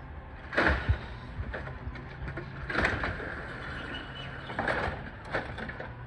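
Automated side-loader garbage truck emptying a wheeled trash bin: the diesel engine runs steadily while the arm shakes the bin out and returns it, with a few loud clunks about half a second in, around three seconds and near five seconds.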